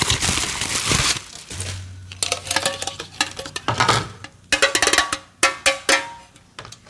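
Packaging crinkling, then a run of light taps and clinks, some with a short ring, as a small pie tin and the kit's pieces are handled.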